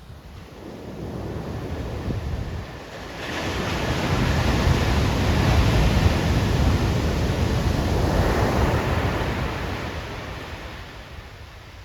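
Heavy shore-break surf on a steep beach: a wave breaks and washes up, its rush of noise swelling about three seconds in and fading away near the end.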